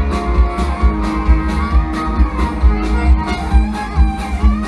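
Live country band music with guitar and drums, a steady beat running under held instrument notes.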